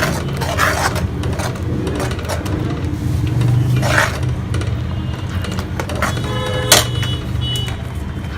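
Metal spoon stirring and scraping a pan of frying onion-garlic tempering over a low flame, in short irregular knocks over a steady low hum. A sharp clack comes about two-thirds of the way through, with a brief ringing tone around it.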